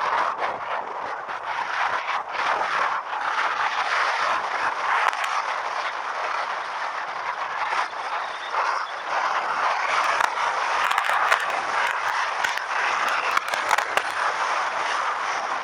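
Steady rushing wind and road noise of a bike ride picked up on an action camera, with sharp clicks and rattles clustered between about ten and fourteen seconds in.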